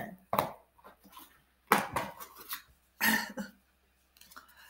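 A few short bursts from a woman's voice, close to the microphone, with brief gaps between them.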